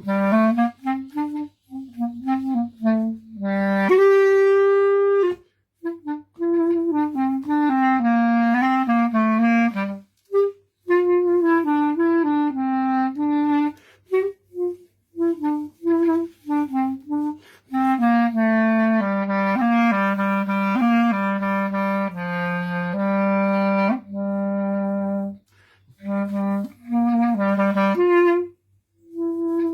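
Solo clarinet playing an unaccompanied melody in phrases separated by brief pauses, with a long held higher note about four seconds in.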